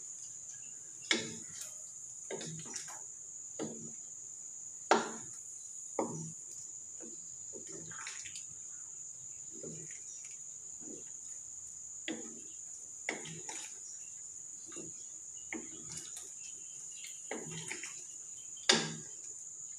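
Wooden spatula stirring curry in a metal wok, knocking and scraping against the pan at irregular intervals, with a few louder clacks, two near the start, one about 5 s in and one near the end. A steady high-pitched whine runs under it.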